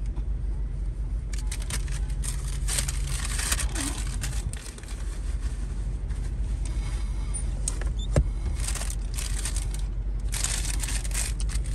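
A paper food wrapper crinkling and rustling in several bursts over the steady low hum of a car cabin, with one sharp click about eight seconds in.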